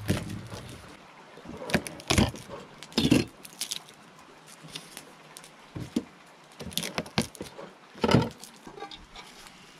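Irregular knocks, clicks and rustles of handling: garlic cloves picked up off a plastic cutting board, then a cast-iron Dutch oven lid lifted by its handle, with a heavier knock about eight seconds in.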